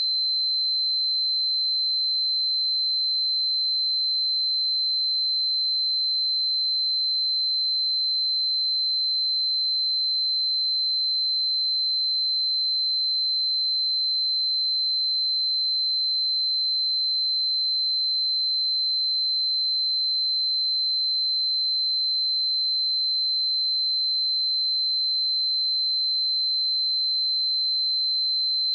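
Pure 4086 Hz sine-wave test tone: a single steady high-pitched tone held at constant level, used for testing speakers and headphones.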